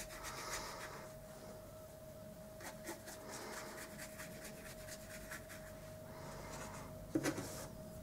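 Faint scratchy rubbing of a watercolour brush's bristles on paper in short repeated strokes, over a steady faint hum. A brief, slightly louder sound about seven seconds in.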